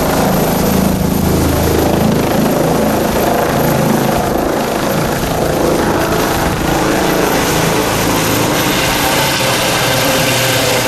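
Airbus Helicopters EC135 twin-turbine rescue helicopter climbing away overhead just after take-off: loud, steady rotor and turbine noise. The low rotor beat fades after the first few seconds as it gains height, while the turbine and tail-rotor hiss carries on.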